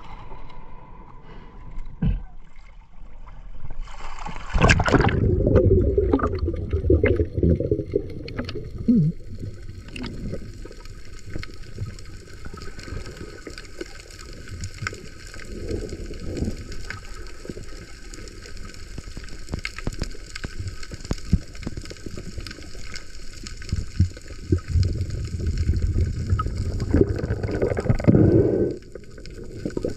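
Water sloshing and gurgling close to the microphone, with many scattered knocks and clicks.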